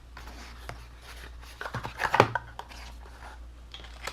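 Cardstock craft pieces being handled on a tabletop: light rustling and small taps, with a louder clatter of knocks and rustling about two seconds in.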